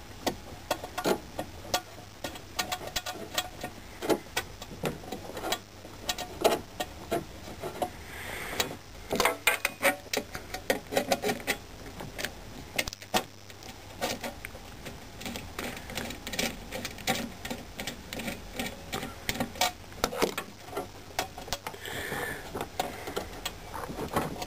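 A hand tool turning a screw out of the IBM 5251 keyboard's base: a long run of small, irregular clicks and scrapes, thicker at times.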